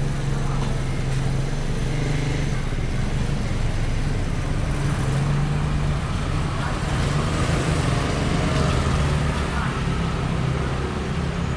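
Steady street traffic noise with a low, wavering engine hum.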